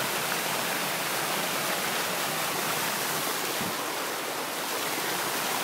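Small waterfall pouring onto rocks: a steady, even rush of falling water.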